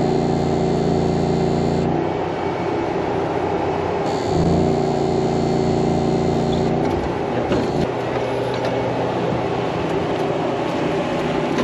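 Electrofishing boat's engine and generator running steadily. Twice, a louder hum with a high whine switches on for about three seconds and cuts off, and a few knocks follow after the second one.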